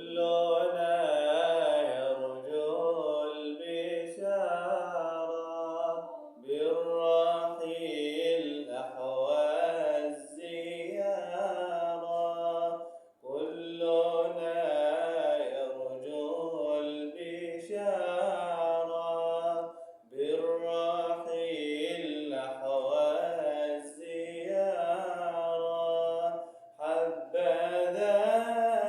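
A man singing an Arabic nasheed unaccompanied, with no instruments. His melody winds up and down in long phrases, with a short pause for breath about every six to seven seconds.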